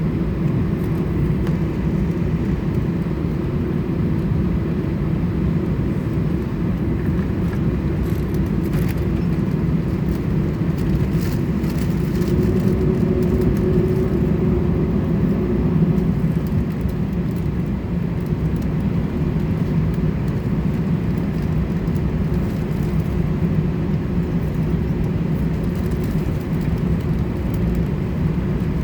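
Airbus A320 cabin noise heard from inside the cabin: a steady low rumble with a drone from the twin jet engines, swelling slightly about halfway through.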